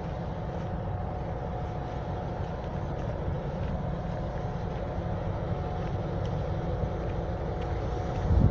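Soviet-built M62 diesel-electric locomotive's two-stroke V12 engine running with a steady low rumble and a steady whine above it as it pulls a freight train slowly closer, growing slightly louder toward the end.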